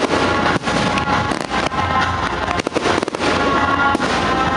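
Fireworks display: many sharp bangs and crackles of aerial shells and ground fountains in quick succession, with music playing underneath.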